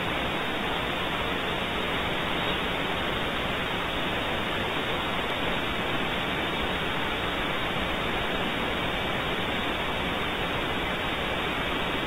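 Steady, even hiss with no distinct events; a faint thin steady tone joins about five seconds in.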